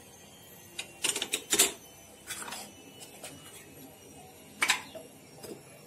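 Spice containers being handled over a steel mixing bowl: light, irregular clicks and taps, a quick run of them about a second in and a few more spread through the rest.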